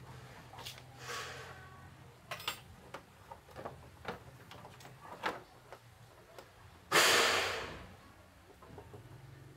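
Light clicks and knocks of wiring and plastic parts being handled as the fuel float's wire is threaded down and plugged into its electrical connector, with a short, loud rasping noise about seven seconds in that fades away within a second.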